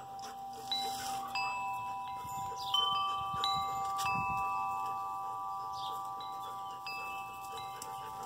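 Wind chimes ringing: several metal tones struck one after another in the first few seconds, each sounding on steadily and overlapping the others.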